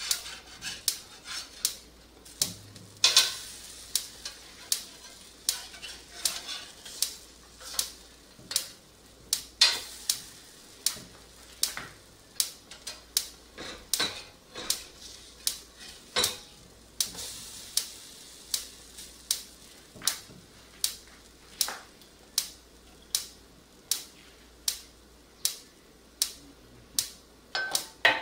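A metal utensil clinking against dishware again and again: sharp ringing taps, irregular but about one and a half a second.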